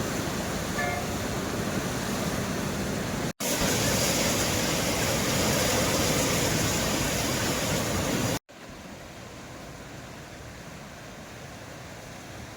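Steady rushing outdoor noise, such as flowing water or wind, in three takes joined by two abrupt cuts; the middle take is loudest and the last much quieter.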